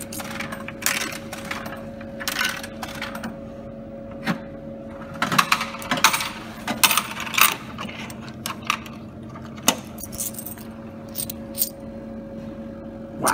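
50p coins being pushed into a vending machine's coin slot and clinking down through the coin mechanism into the change tray, in irregular bursts. A steady electrical hum from the machine runs underneath.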